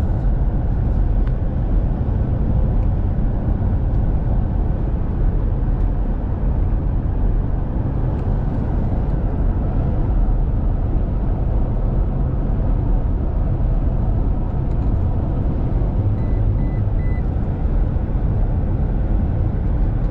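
Steady low rumble of engine and road noise inside a moving truck's cabin.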